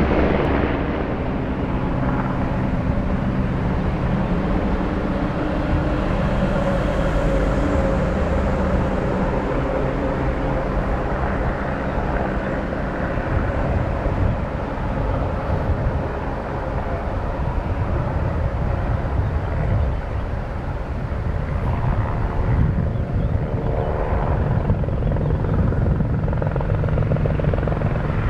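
Eurocopter AS 350 helicopter in flight, its rotor and turbine running steadily with a low, even beat.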